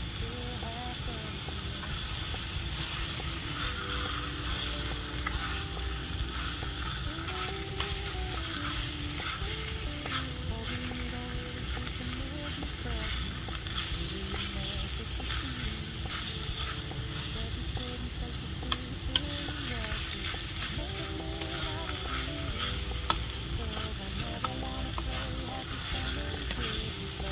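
Diced pork belly and curry paste sizzling in a wok while a wooden spatula stirs and scrapes through it, with a few sharper knocks of the spatula on the pan in the second half.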